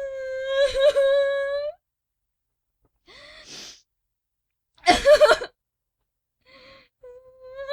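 Female voice crying: a long, high, held wail, then a pause, a sharp gasping intake and a loud sob, and the wail starting again near the end.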